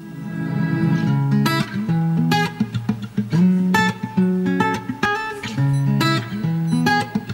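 Background instrumental music: a tune of plucked notes, fading in over the first second.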